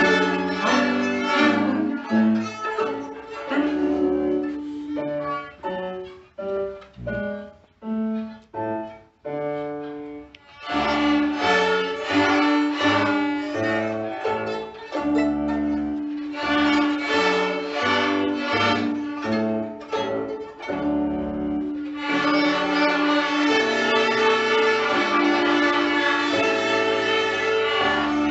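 A class of children playing violins together, bowing the same notes in unison. Partway through comes a run of short, separate notes with gaps between them, followed by longer held notes.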